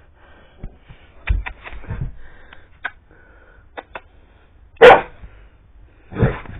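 Yellow Labrador retriever barking: a loud single bark about five seconds in and another shortly before the end, with softer low woofs and a few faint clicks earlier on.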